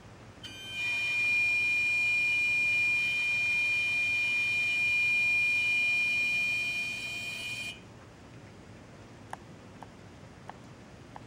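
A steady, high-pitched tone from the engine compartment of a parked car, two hours after it was switched off. It starts about half a second in, holds for about seven seconds, and cuts off suddenly. A few faint ticks follow.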